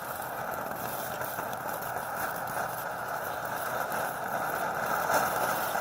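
TNT Fireworks Miss Glitter, a small Safe and Sane fountain firework, burning: a steady hiss of spraying sparks that grows a little louder toward the end.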